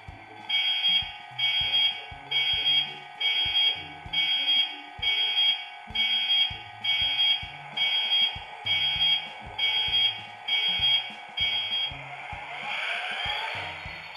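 Hornby Class 66 model locomotive's TTS sound decoder playing its start-up sequence through the model's small speaker. About a dozen evenly spaced electronic beeps come a bit under a second apart, then near the end the diesel engine sound starts up with a rising whine.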